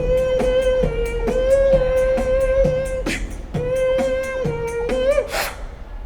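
Human beatboxing: a sustained hummed note held over a steady kick-drum beat of about two kicks a second, with clicking hi-hat sounds on top. The note breaks off briefly about halfway and glides upward near the end, followed by a short hissing snare-like burst.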